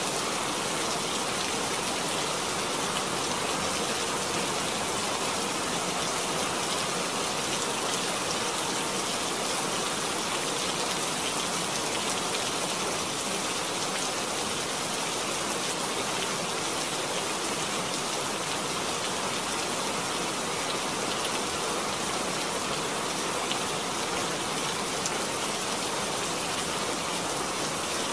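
Steady rain falling: an even, unbroken hiss with faint scattered ticks of single drops.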